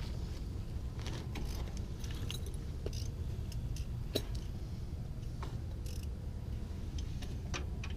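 Light metallic clinks and clicks, irregular and scattered, from hand tools and small hardware being handled during front suspension work, over a steady low rumble.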